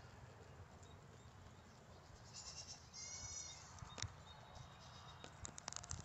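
Guinea pigs squeaking: two short high-pitched calls in quick succession about two and a half to three and a half seconds in, then scattered small ticks over faint background noise.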